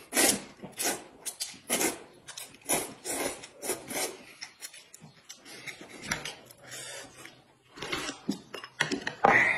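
Two people slurping noodles, a sharp slurp about once a second, with the loudest slurp near the end.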